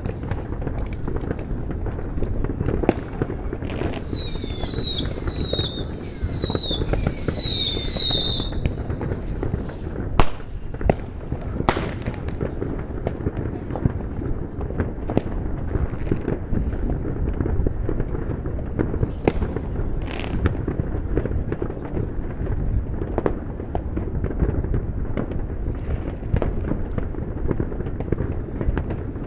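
Dense New Year's Eve fireworks: a continuous barrage of bangs and crackling firecrackers over a low rumble. A run of whistling fireworks, each whistle falling in pitch, plays from about 4 to 8 seconds in, and a single sharp, louder bang comes just after 10 seconds.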